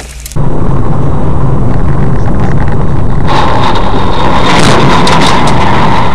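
Car driving noise picked up by a dashcam microphone: a steady, loud rumble of engine and road, joined about three seconds in by a brighter rushing noise.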